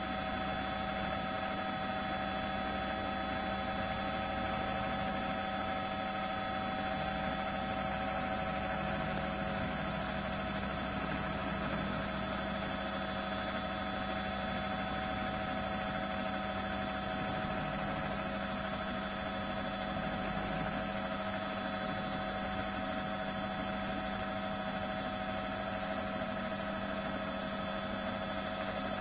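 Steady drone of a news helicopter's engine heard from on board, an unchanging hum with several steady whining tones over it.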